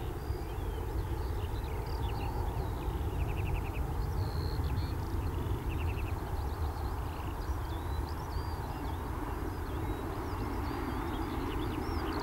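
Steady low rumble of a departing Boeing 737-800's CFM56 jet engines as it climbs away, with birds chirping and trilling over it, including a couple of quick rattling trills.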